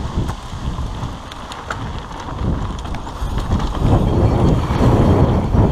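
A mountain bike riding fast down a dirt and gravel trail: a low wind rumble on the microphone over tyres crunching on the dirt, with a few sharp rattles from the bike. It gets louder from about three seconds in.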